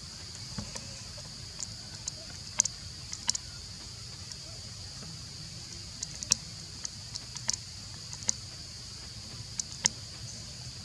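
Steady high-pitched insect drone, with irregular sharp clicks scattered through it, a dozen or more, the loudest about a third of the way in, past the middle and near the end.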